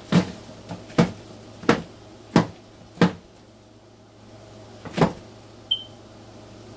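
Egg-crate cardboard being knocked to shake dubia roaches off it: five sharp knocks about two-thirds of a second apart, then one more after a pause of about two seconds.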